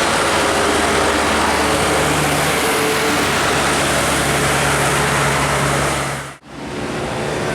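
A bus passing close on the road: a loud, steady rush of engine and road noise with a low engine hum under it. The sound fades out quickly about six seconds in and picks up again straight away.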